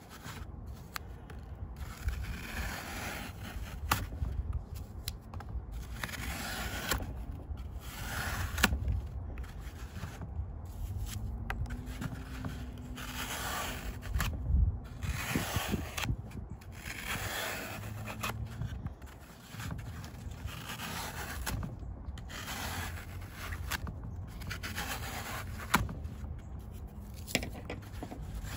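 A small wooden-handled loop tool scraping and carving strips from a block of dry green floral foam, in repeated gritty strokes every second or two.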